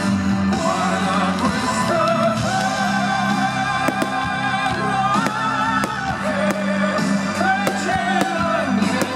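Pop music with a sung melody, with a few sharp cracks from fireworks through the middle and near the end.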